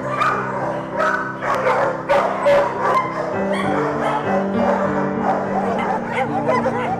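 Background music with held chords over many kennelled shelter dogs barking and yelping. The barking is thickest in the first three seconds.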